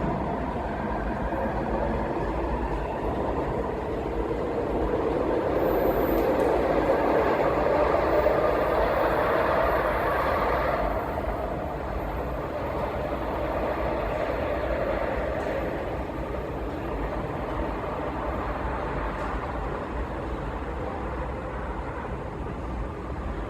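TTC Scarborough RT Mark I car 3015 running, with an unusual motor sound from its linear induction motor: a tone that rises in pitch through the first ten seconds or so, then fades into the steady rail running noise.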